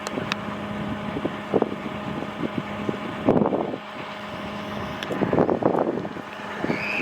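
A motor running with a steady low hum, with the voices of people talking at times over it.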